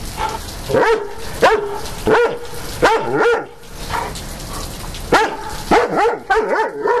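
German Shepherd barking at close range: about ten short barks, several in quick pairs, with a pause of over a second in the middle. A steady hiss of rain lies underneath.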